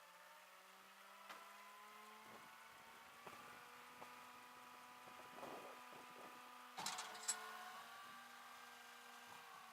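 Faint steady hum of a vehicle engine running, its pitch creeping up slightly, with scattered light clicks and a louder clatter of clicks about seven seconds in.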